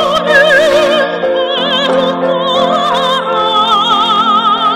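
Soprano singing a Korean art song in operatic style, holding long notes with wide vibrato over sustained instrumental accompaniment.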